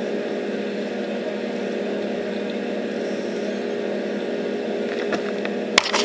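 Steady hum of a running machine holding one even pitch, with a few sharp knocks near the end.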